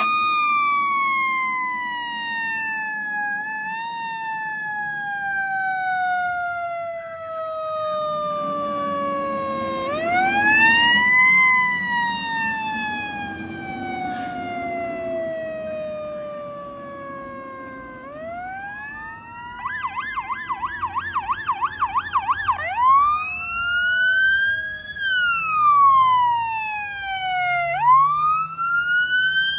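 Fire department emergency vehicle's electronic siren in wail mode: long slow falling sweeps, each followed by a quick rise. About two-thirds of the way through it switches for a few seconds to a fast yelp, then returns to shorter wail cycles.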